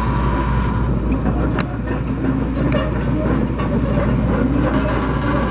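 Diesel engine of a 1995 Hitachi EX300LC-3 hydraulic excavator running steadily under power, with a few sharp metallic clanks in the middle.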